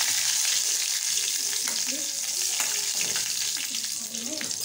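Bay leaves frying in hot oil in a steel kadai: a steady sizzle that slowly dies down.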